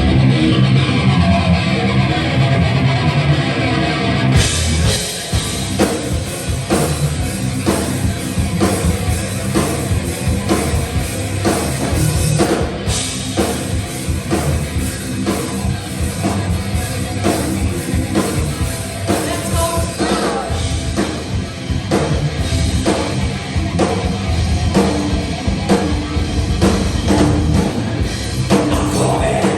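Heavy metal band playing live in a sound check. Electric guitar chords ring out at first. About four and a half seconds in, the drum kit comes in with a steady, regular beat under the guitars.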